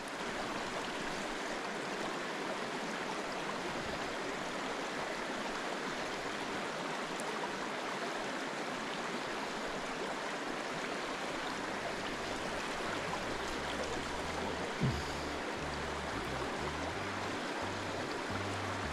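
Small stream flowing steadily over rocks into a culvert pool, an even rush of water. Low background-music notes come in about two-thirds of the way through.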